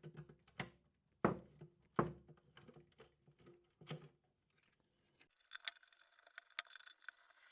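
Scattered light knocks and clicks from small parts and wiring being handled, the loudest about a second and two seconds in, then faint hiss with light ticks near the end.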